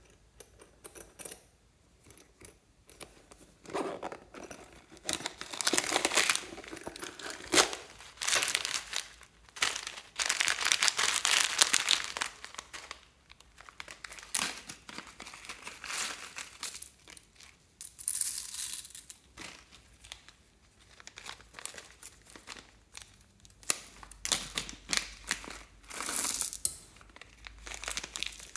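Thin plastic packets crinkling and tearing as they are pulled open and handled, in irregular bursts of crackling that come thick in the first half and more scattered later.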